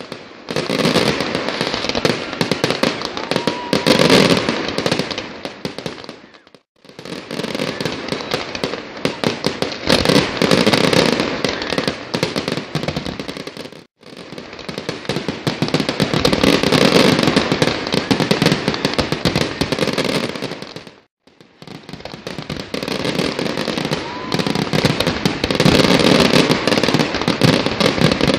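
Fireworks display: a dense, continuous barrage of bangs and crackling from aerial shells bursting. The sound breaks off abruptly for a moment three times.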